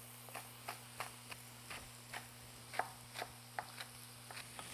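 A chef's knife chopping spring onion on a wooden chopping board: faint, irregular knocks, about two a second, over a low steady hum.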